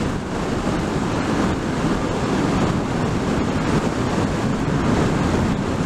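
Steady rush of wind buffeting the rider's microphone on a moving motorcycle, with the Suzuki GSX-8S's 776cc parallel-twin engine running underneath.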